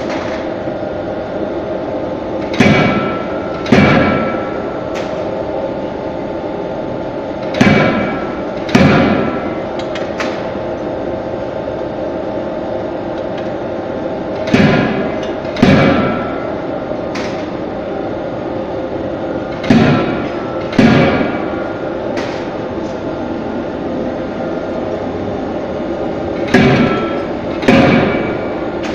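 CNC hydraulic die hammer (25 kJ) forging table-knife blanks: heavy blows in pairs about a second apart, five pairs with five to seven seconds between them, each blow ringing briefly. A steady machine hum runs underneath.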